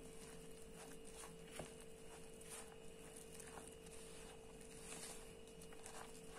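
Faint, irregular soft scrapes and taps of a spoon stirring flour and boiling water into a clumpy roti dough in a metal mixing bowl, over a faint steady hum.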